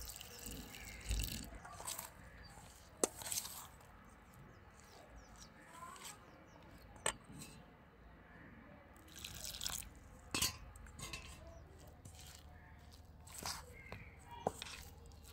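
Water poured into a stainless steel bowl of chopped onions and flour, then a steel spoon stirring and mashing the wet, crumbly batter, with several sharp clinks of the spoon against the bowl.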